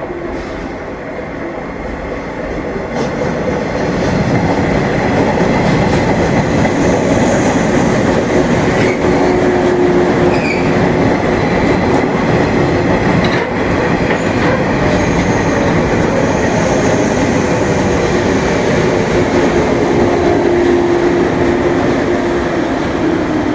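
A JR West 115-series electric multiple unit running along the platform: the rumble and clatter of its wheels on the rails grow louder over the first few seconds as it approaches, then hold steady as the cars pass, with a faint steady whine in the second half.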